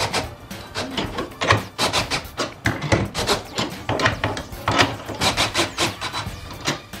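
Cordless drill driving the gearing of an all-steel glue-pulling dent bridge, with uneven clicking and creaking of metal under load as the glued tabs pull the door panel out.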